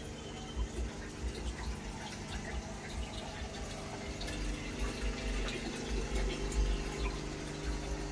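Water trickling and dripping from a fish tank's pump and filter, over a steady low electrical hum, with irregular low thumps that come more often in the second half.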